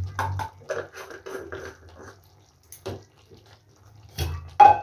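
Steel kitchen utensils being handled: a quick run of light clinks and scrapes from spoons and containers, one knock about three seconds in, and a louder metallic clank with a short ring near the end.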